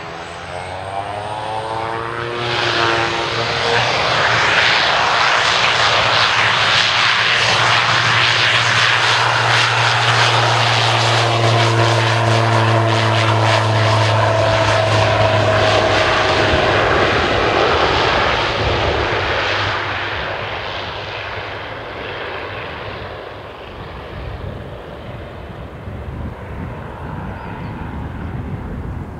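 Pilatus PC-12's single PT6A turboprop engine at take-off power: the propeller and turbine sound swells over the first few seconds as the aircraft powers up and rolls, holds loud and steady with a low propeller hum for about fifteen seconds, then fades as it climbs away.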